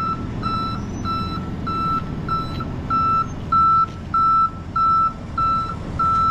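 Truck reversing alarm beeping steadily, a little under two beeps a second, over the low rumble of a truck engine running while the vehicles are manoeuvred onto a tow truck's deck.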